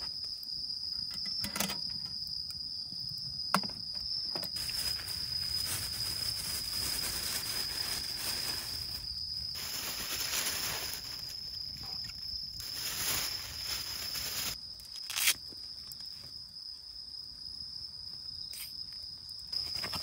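An insect trills steadily on one high note throughout. A few sharp knocks come through, and a louder stretch of rustling, hissing noise fills the middle.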